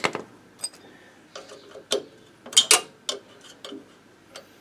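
Irregular metal clicks and taps of a spanner working on the engine-spring bolt of a Motobécane moped, with one short metallic ping under a second in.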